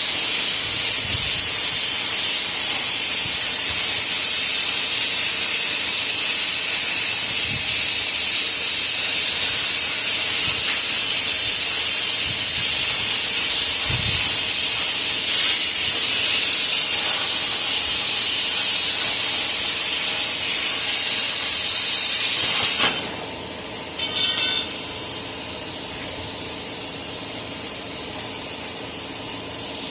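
Loud, steady spraying hiss that cuts off suddenly about 23 seconds in. A brief spurt follows a second later, then a quieter hiss carries on.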